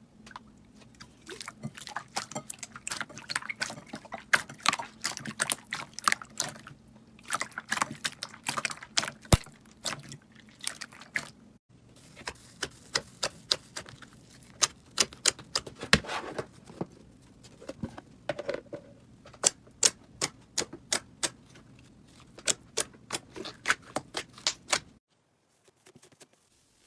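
Slime being squeezed and worked by hand, a rapid run of sticky wet clicks and pops with a few short breaks.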